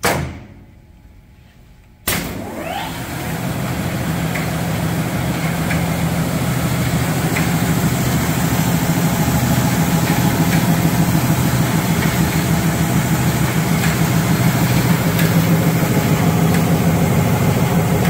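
CEMCO UF-2137-SE wide belt sander starting up: a sharp burst right at the start, then about two seconds in the motor comes on with a brief rising whine as it spins up. It then runs steadily with a low hum, unloaded and with no stock being fed.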